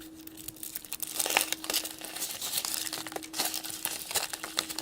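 Foil wrapper of a chocolate egg crinkling in irregular quick crackles as it is unwrapped by hand.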